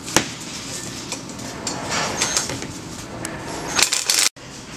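Cordless drill-driver driving screws into galvanized steel tubes, with clicks, scraping and rattling of the metal tubing on the table; the loudest burst comes just before the sound cuts off abruptly near the end.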